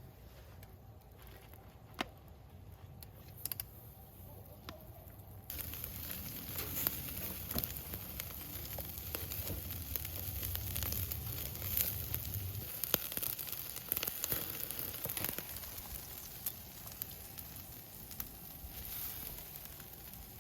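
Chicken skewers sizzling on a grill with small crackling pops. The sizzle is faint with a few scattered clicks at first, then turns suddenly louder and denser about five seconds in.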